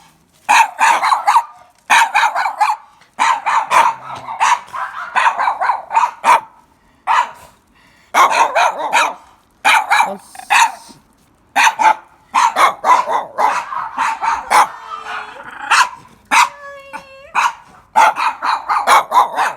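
Mame-shiba puppies barking and yapping in rapid bursts of short, sharp barks with brief pauses between them, with a short pitched cry about sixteen seconds in.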